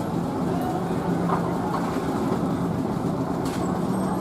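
Steady background rumble of motor traffic with a constant low hum.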